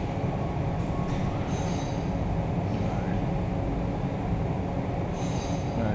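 Steady low hum of running machine-shop equipment, with a faint high hiss swelling briefly a couple of times.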